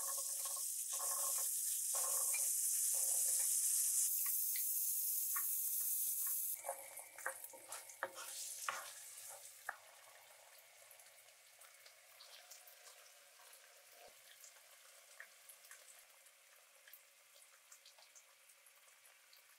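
Pomegranate seeds tipped into a pan of hot butter, oil and fried onion set off a loud, high sizzle that lasts about six seconds. A wooden spatula then stirs them with crackling and scraping. After that the frying settles to a faint, steady crackle with small pops.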